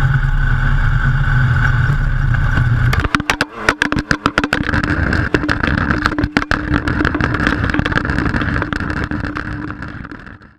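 Off-road race vehicle's engine running hard at speed, the sound breaking up in rapid choppy dropouts from about three seconds in, then fading out near the end.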